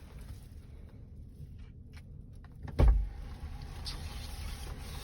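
A single loud thump about three seconds in, over a steady low rumble.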